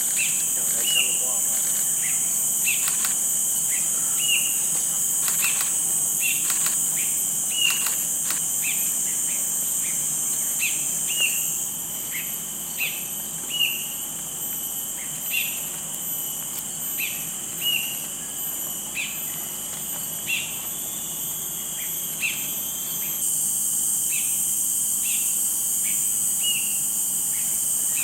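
Cinereous bulbul calling over and over, a short high note about once a second, over a steady high-pitched drone of insects.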